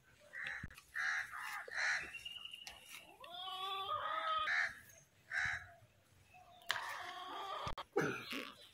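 Birds calling: short repeated caws typical of crows, with a longer, drawn-out call from about three seconds in.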